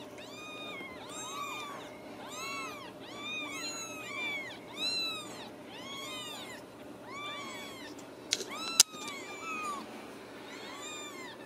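Several very young Ragdoll kittens mewing over and over, thin high cries that each rise and fall in pitch, about one a second and sometimes overlapping. A single sharp click about three quarters of the way through.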